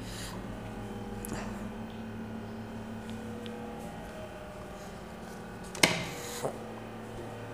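Quiet room with a steady low hum, then a single sharp knock about six seconds in, followed by a lighter knock about half a second later.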